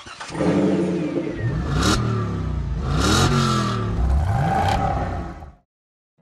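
Car engine revving hard, its pitch climbing and dropping several times, with short whooshes in between; it cuts off suddenly near the end.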